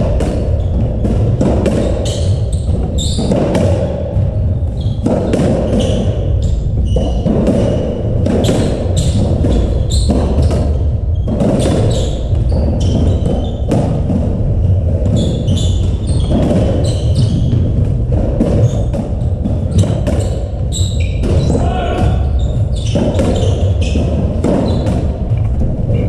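Racketball rally: the hollow rubber ball struck by strung rackets and thudding off the walls and wooden floor, many irregular hits echoing in the court, with occasional short high squeaks of shoes.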